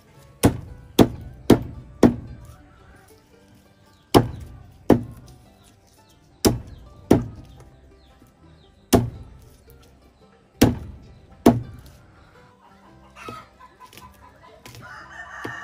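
Wooden mallet smashing garlic cloves on a wooden stump chopping block: about eleven sharp thuds in pairs and small groups, with pauses between, to crush the cloves.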